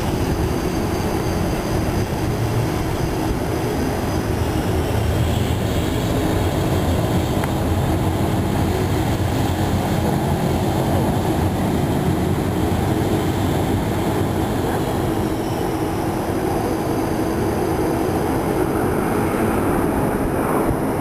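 Panavia Tornado's twin RB199 turbofan jet engines running steadily: a loud, even rumble with a high turbine whine that shifts up and down in pitch, near the start and again near the end.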